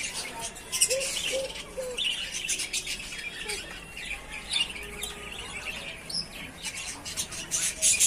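Budgerigars chattering in quick, high chirps that run on without pause and crowd together near the end.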